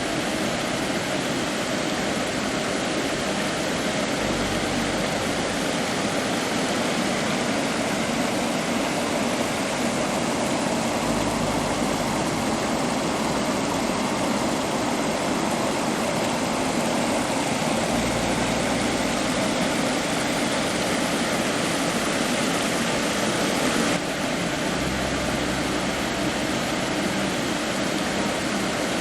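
Steady rushing of a waterfall and river, an even wash of water noise that drops slightly in level near the end.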